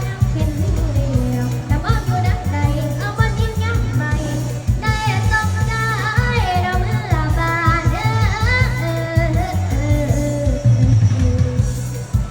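A young girl singing a Thai song over a backing track with a heavy, steady bass beat, holding long notes with a wavering vibrato.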